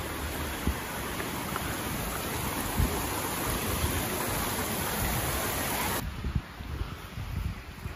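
Mountain stream rushing over rocks: a steady hiss of running water with a couple of short knocks. It cuts off suddenly about six seconds in, leaving a quieter, uneven low rumble.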